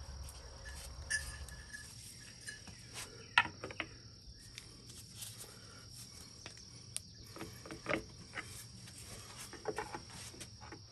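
Sharp metallic clicks and taps from a pry bar and hands working a motorcycle engine's stator cover loose from the crankcase, the loudest click about three seconds in. A steady high thin tone runs underneath.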